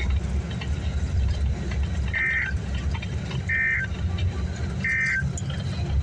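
Three short, identical bursts of warbling digital data tones from a Midland weather radio's speaker, evenly spaced about a second and a half apart: the EAS/SAME end-of-message code that closes a NOAA Weather Radio severe thunderstorm warning. Under them runs the steady low rumble of a moving bus.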